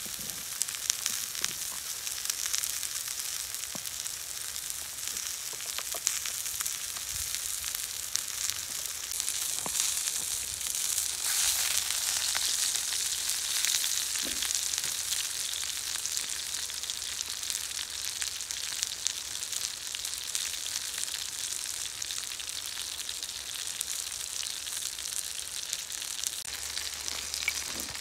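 Food frying in hot fat: a steady sizzle flecked with fine crackles and pops, swelling louder for a few seconds about halfway through.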